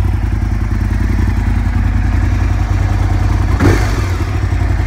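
Aprilia RSV Mille 997cc V-twin running steadily in neutral through an Arrow carbon-fibre aftermarket exhaust. A brief clatter comes about three and a half seconds in.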